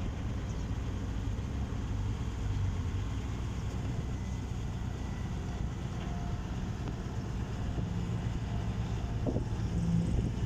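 Heavy diesel engine of earthmoving equipment running steadily, a low rumble, with a few faint clunks near the end.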